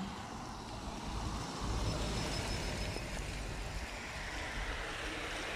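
Cars driving by on a street, a steady rumble of engine and tyre noise that grows louder about two seconds in.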